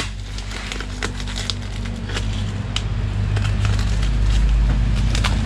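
Packing tape and plastic parcel wrap crackling and tearing as the wrapping is cut open by hand, with scattered sharp crackles. A steady low hum runs underneath.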